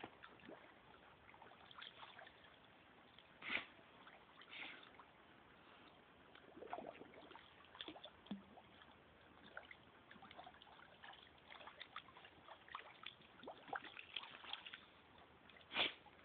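Swimming-pool water faintly sloshing and trickling, with scattered small splashes; two louder splashes stand out, about three and a half seconds in and near the end.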